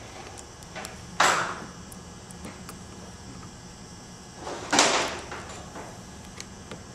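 Two sharp scraping knocks of hand tools working on the plastic pressure-switch housing of a 6T70 transmission control module, one about a second in and one near the middle, each fading quickly, with a few light ticks between.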